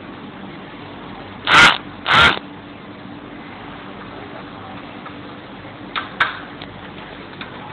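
Two brief, loud scuffing noises close together about a second and a half in, then a couple of faint clicks near six seconds: hands handling a rubber pad and hex key against a bicycle frame.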